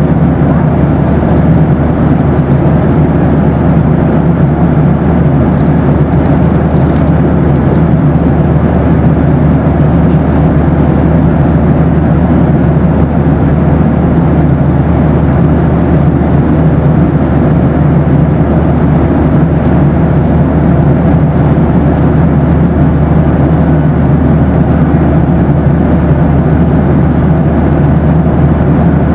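Steady cabin noise inside a Boeing 737 airliner: a loud, even rumble of engines and airflow, deepest in the low end, with a faint steady hum above it.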